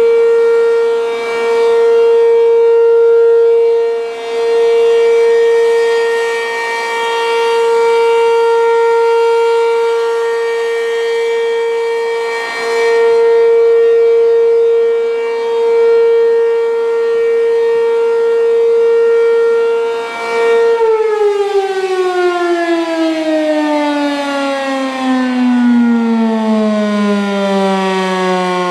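ACA P-15 rotating eight-port civil defense siren sounding a steady wail during a siren test. Its volume swells and dips every few seconds as the horn turns. About three-quarters of the way through it shuts off and winds down, the pitch falling smoothly.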